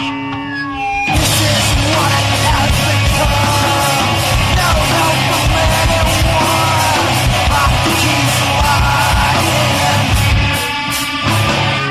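Loud distorted punk-rock song: shouted vocals over electric guitar, bass and crashing drums. The full band comes in about a second in and drops back to guitar alone near the end.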